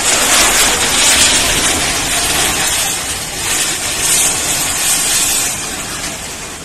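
Loud rush of a flash-flood torrent, with the crash and rumble of a roadside shop and the road's edge collapsing into the water. It comes up suddenly at the start and eases off near the end.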